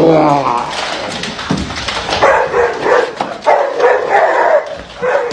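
A dog vocalizing in a run of short, pitched calls, one after another.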